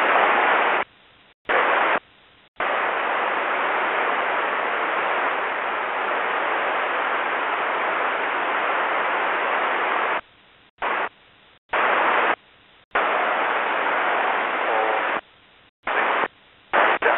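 Aircraft-band radio scanner output: bursts of static hiss that cut in and out sharply as the squelch opens and closes, including one unbroken stretch of about eight seconds.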